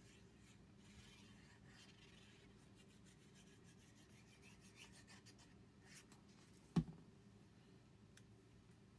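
Faint rubbing and rustling of paper, with one sharp knock about two-thirds of the way through as a small bottle is set down on the table.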